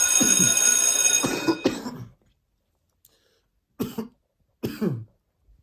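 Harsh, crunchy coughing: a few coughs over a steadily ringing bell that cuts off about two seconds in, then two more single coughs near the end.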